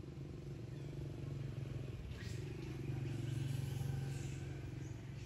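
Low hum of a motor vehicle's engine passing, growing louder to a peak about three and a half seconds in and then fading.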